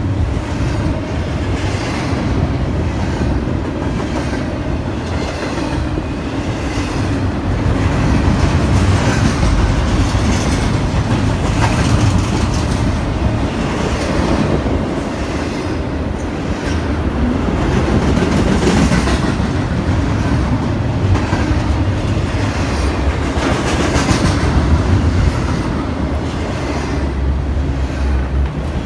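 BNSF double-stack intermodal freight train's cars rolling past steadily, steel wheels clicking over the rail joints through a continuous loud rolling noise.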